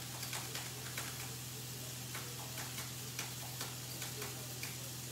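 Chef's knife tapping on a plastic chopping board while finely dicing a bird's eye chilli: irregular light ticks, a few a second. A steady low hum runs underneath.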